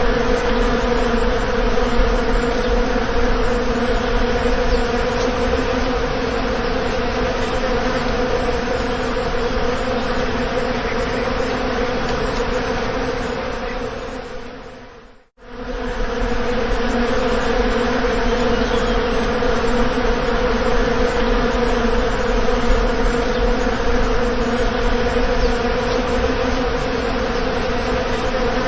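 Bees buzzing in a steady, continuous hum. About halfway through it fades away, cuts out for a moment and then resumes at the same level.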